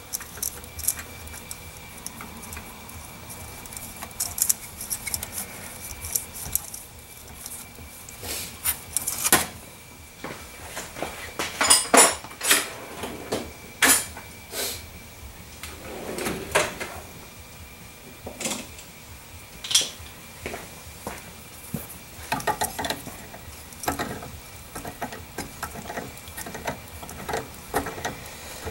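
Scattered light metallic clicks, taps and clinks of hand tools and small fittings being handled inside a plasma cutter's open metal case while a pressure switch and its wires are fitted, with a busier run of clicks about twelve seconds in.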